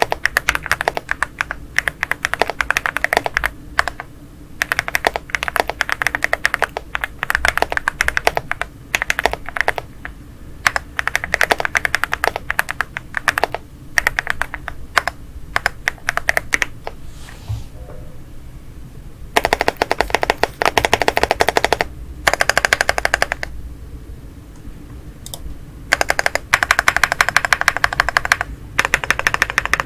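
Typing on a Leobog Hi75 aluminium mechanical keyboard fitted with Leobog Rocklee linear switches: bursts of rapid keystrokes separated by short pauses, with a longer lull a little past the middle.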